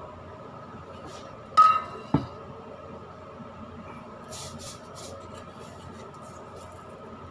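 Metal cookware clinks sharply with a brief ring against the cooking pot about a second and a half in, followed by a second short knock; a few soft shaking scuffs follow as grated parmesan is shaken from a plastic shaker.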